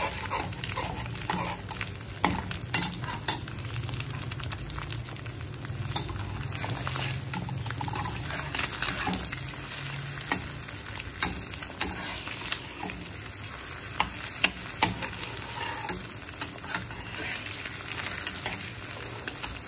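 Beaten egg frying in hot oil in a pan, sizzling steadily, with a utensil scraping and tapping against the pan many times.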